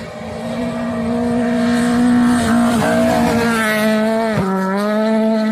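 Rally car engine at full throttle on a gravel stage, growing louder as the car approaches and passes close. The revs climb, dip sharply about four and a half seconds in, then rise again.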